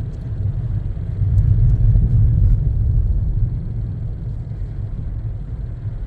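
Low, steady rumble of a car's tyres and engine heard from inside the cabin while driving slowly on a snow-covered road, swelling a little between about one and three seconds in.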